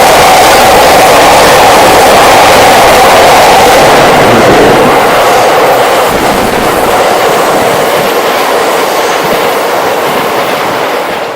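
Cassiopeia sleeper train, hauled by an EF81 electric locomotive, passing close by: loud, steady wheel-on-rail noise for the first few seconds, then fading as the train draws away, cutting off suddenly at the end.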